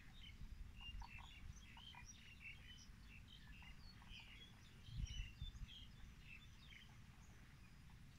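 Faint chorus of small birds chirping, with many short scattered notes, over a low background rumble that swells briefly about five seconds in.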